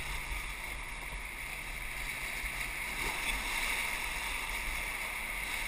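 Whitewater rapids rushing steadily around a river raft.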